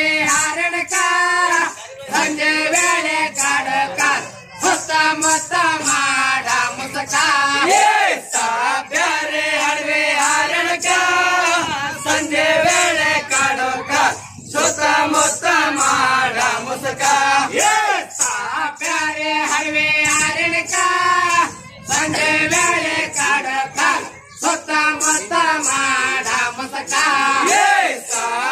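Rivayat pada, a North Karnataka folk song, sung by a group in chorus, with a regular high-pitched beat about twice a second.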